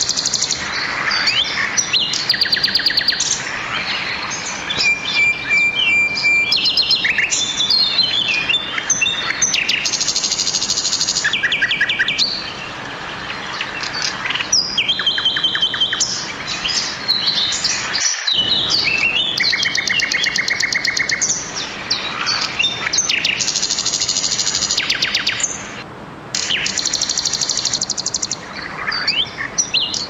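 Mountain river rushing steadily over rocks, with several songbirds singing over it in chirps, whistled notes and rapid trills. The water sound cuts out for a split second once, about midway.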